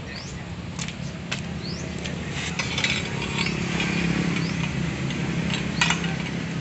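A rag rubbing and scrubbing along a chrome motorcycle exhaust header pipe, growing louder in the middle. Several sharp metal clinks and knocks come through as the pipe shifts, over a steady low hum.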